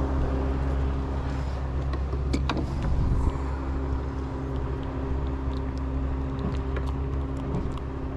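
Outboard motor idling with a steady low hum, and a few light knocks about two and a half to three seconds in as the caught fish is handled.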